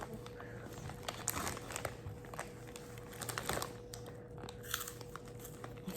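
Faint, scattered crinkling and crunching of a puffed corn snack and its bag being handled and bitten into, with a faint steady hum underneath.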